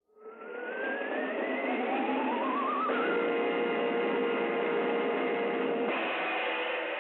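Cartoon title music from an orchestra: rising sweeps climb for about three seconds, then the band holds a sustained chord that shifts about six seconds in.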